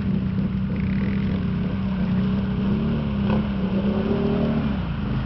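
ATV (quad bike) engine running, a steady note whose pitch rises and falls a little in the second half as the throttle is worked.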